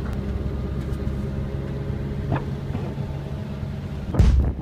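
Car driving on a road, a steady low engine and road rumble. A sudden louder rush of noise comes near the end.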